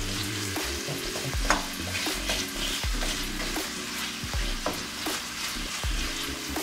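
Wooden spatula stirring and scraping sliced onions around a stainless steel sauté pan, with irregular scrapes and knocks against the metal, while the onions sizzle steadily in hot oil. The spatula is working the browned bits off the bottom of the pan.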